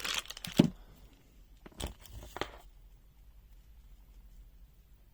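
Handling noise as multimeter test leads are unpacked: a burst of rustling with a sharp knock in the first second, then two more rustles and clicks around two seconds in.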